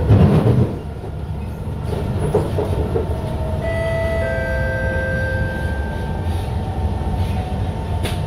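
Cabin sound of a Kawasaki Heavy Industries C151 metro train running along the track: a steady low rumble of wheels and car body, loudest in roughly the first half second. About three and a half seconds in, a steady whine of several tones joins it.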